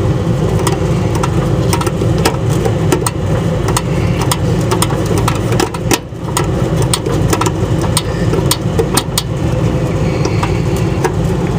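A steady low machine hum throughout, with frequent sharp metallic clicks as a screwdriver tightens the wire terminal screws on an air conditioner's contactor.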